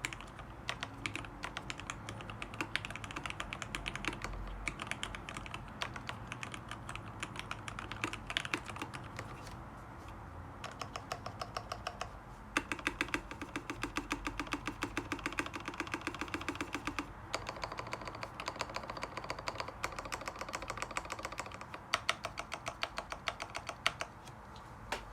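Custom mechanical keyboard being typed on steadily. It has lubed linear switches with Tealios stems, an aluminium plate and lubed stabilizers, and gives a continuous run of keystrokes that thins briefly about ten seconds in.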